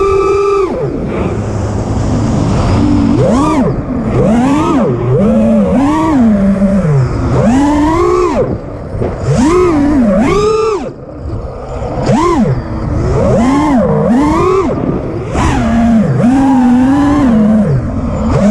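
Supafly Flipmode FPV quadcopter's brushless motors and propellers whining, the pitch swooping up and down about once a second as the throttle is punched and cut through flips and rolls. The sound is picked up by the quad's onboard camera.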